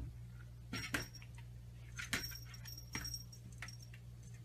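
Small bell on a cat's collar jingling in short rattles, with a high ringing note in the middle, as the cat bats at a door on its hind legs. A few light taps of paws on the door come with it.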